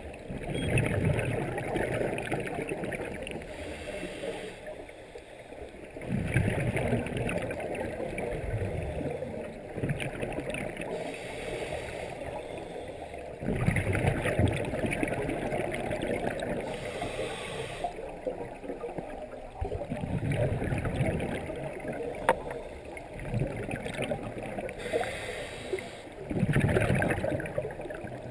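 Scuba breathing underwater: the bubbling of exhaled air from a regulator comes in bursts about every six to seven seconds, five times, with quieter breathing noise between.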